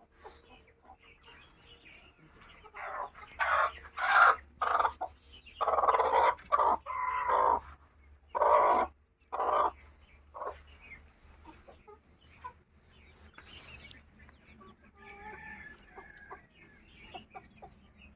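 Local farm chickens clucking and a rooster crowing. A string of loud calls comes from about three to ten seconds in, one of them longer than the rest, and after it only faint calls are heard.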